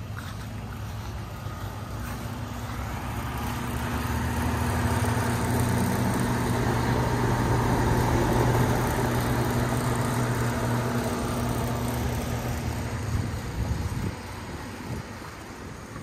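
Outdoor central air conditioner condenser unit running: a steady hum with the rush of its fan, growing louder toward the middle and dropping off about two seconds before the end.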